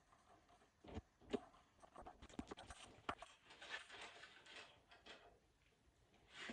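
Faint scattered knocks and clicks, with a few short rustles, as of tools or parts being handled; the sharpest knock comes about a second in.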